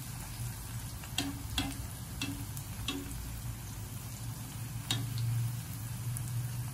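Sliced shallots frying in oil in a nonstick pan, a fine sizzle, with wooden chopsticks clicking against the pan half a dozen times as they turn the shallots, which are browning toward golden. A steady low hum runs underneath.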